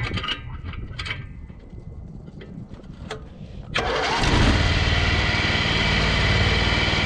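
A few clicks and knocks, then the motorized couch's 21-horsepower small engine starts about four seconds in and keeps running steadily.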